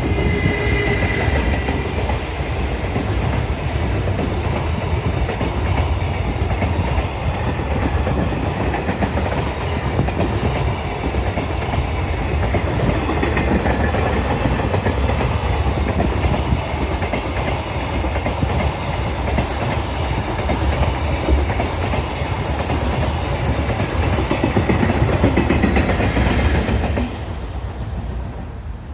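Freight train passing, its wagons' wheels rumbling and clattering along the rails in a steady loud run; the noise eases off slightly near the end.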